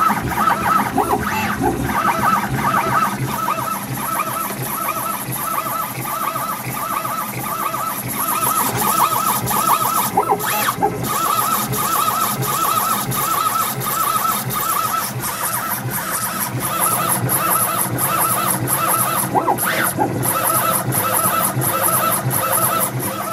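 Stepper motors driving the leadscrews of an MBF550 milling machine converted to CNC: a whining tone that rises and falls over and over in quick moves, about three a second, with scattered clicks.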